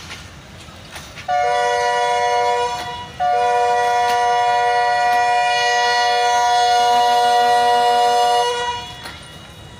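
Diesel locomotive's multi-note air horn: a short blast of about a second and a half, then a steady long blast of about five seconds that fades out.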